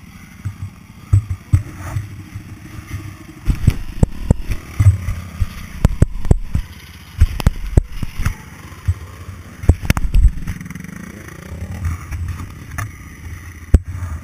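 Dirt bike engine running at low revs, rising once in a short rev about three-quarters of the way through, under repeated sharp knocks and clatter.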